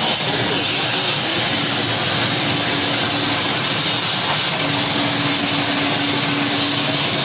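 CNC plasma cutter cutting sheet metal for HVAC ductwork: a loud, steady hiss, with a faint low hum that comes and goes twice.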